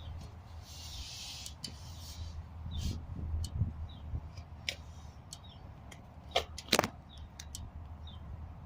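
Steady low hum of a 4.3 V6 van engine idling, with scattered light clicks and two sharper knocks close together about six and a half seconds in.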